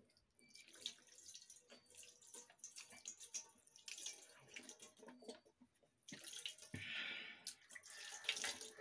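Water poured from a steel pot over a hand, splashing and dripping into a steel plate, with small metallic clinks. About two-thirds of the way in the pour becomes a steadier stream.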